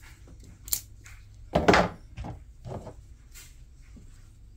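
Off-camera handling noises: a sharp click, then a louder knock about a second and a half in, followed by a few softer knocks, as objects are moved about.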